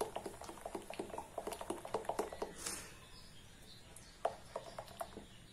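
Gram-flour batter being stirred with a spoon in a glass bowl: quick wet clicking and slapping strokes that thin out to a few scattered ticks about three seconds in.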